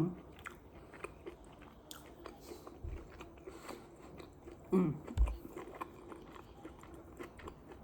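A person chewing and biting food close to the microphone, with many small wet mouth clicks, a short hum about five seconds in and a couple of low thumps.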